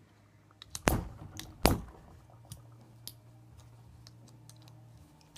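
Clicks and knocks of a disposable lighter's small plastic and metal parts being handled and pried apart: two sharp loud clicks about a second in and just before two seconds, then a few light ticks.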